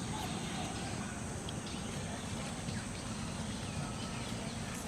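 Outdoor rural ambience: a steady low rumble with faint, scattered bird chirps.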